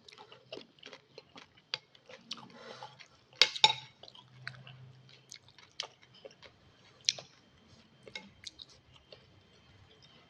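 Close-up mouth sounds of a person eating soupy instant noodles: soft, irregular chewing with wet smacks and clicks, and two louder wet sounds about three and a half seconds in.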